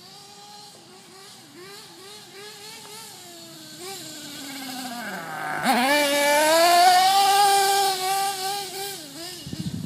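1/8-scale nitro RC truggy's .32 nitro engine running, its revs rising and falling as it drives around. About halfway through the revs drop low, then climb sharply and it is loudest for a couple of seconds before fading.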